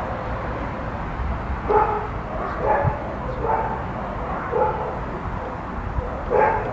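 A dog barking: about five short, separate barks spread over several seconds, over a steady low background rumble.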